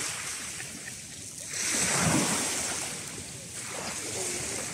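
Small sea waves washing onto a shingle beach, one wave swelling up about a second and a half in and falling away again.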